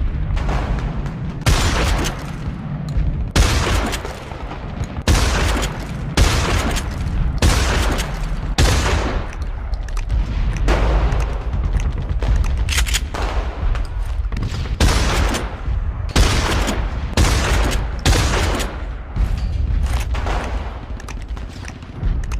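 Trench shotgun firing over and over, about one loud shot a second, each with a trailing echo, over a steady low rumble.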